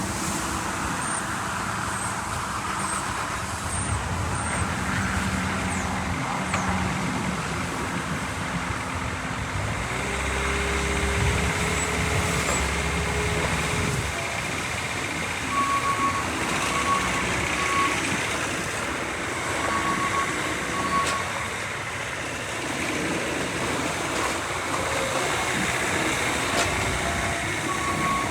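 2016 Bobcat S530 skid steer's diesel engine running, its pitch shifting for a few seconds as it works. From about halfway, a backup alarm beeps in short repeated tones.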